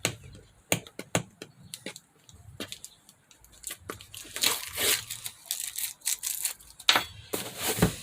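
Cardboard packaging being cut and torn open, with scattered clicks and rustles of the box being handled and several tearing rips in the second half.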